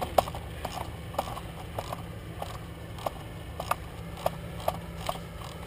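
Airsoft guns firing single shots around the field, heard as scattered sharp cracks about one or two a second at irregular intervals, over a steady low rumble.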